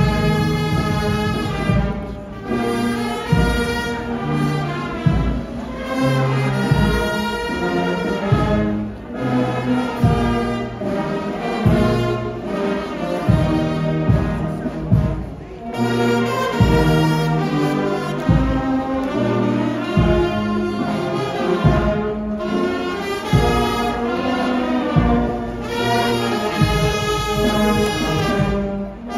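Brass band playing a slow procession march, with steady drum beats and short breaks between phrases.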